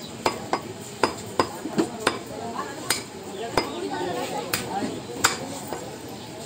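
Meat cleaver chopping beef on a wooden log chopping block: about ten sharp chops at an uneven pace, roughly one every half second to second.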